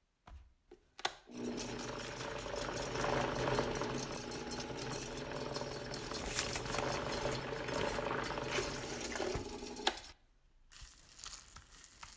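Electric stand mixer running steadily, its motor whirring as it beats batter, for about eight seconds before cutting off. A sharp click comes just before it starts.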